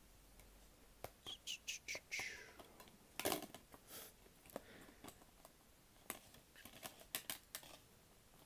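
DVDs being pushed onto the snap-in hubs of a plastic multi-disc DVD case, with a series of quiet clicks, knocks and plastic creaks as the case is handled. The loudest knock comes about three seconds in, and a short squeak comes just before.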